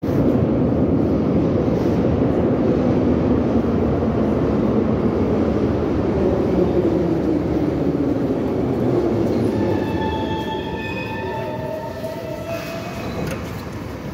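An 81-717 'nomernoy' metro train pulls into the station: a loud, steady rumble of the cars running along the platform, easing off about nine seconds in. As it slows to a stop it gives a squeal of several high tones, some sliding down in pitch.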